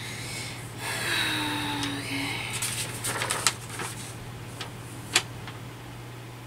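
Paper and small objects being handled on a desk: a crinkling rustle about a second in, then a quick run of taps and clicks and a few single clicks.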